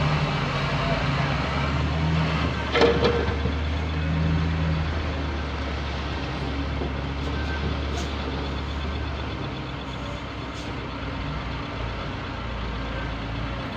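Heavy diesel engines of dump trucks and a bulldozer running steadily, with a short sharp burst about three seconds in. The rumble eases a little after about ten seconds.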